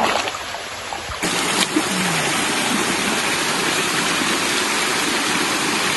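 Stream water rushing over rocks, a steady hiss-like noise that grows fuller and louder just over a second in.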